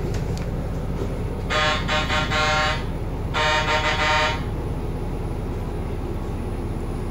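Train crew communication buzzer between the driver's cab and the conductor, sounding the pattern 'bu, bu-bu-buu' twice in a row about two seconds in: the driver's signal reporting to the conductor that his exchange with dispatch is over. A steady low rumble from the stopped train runs underneath.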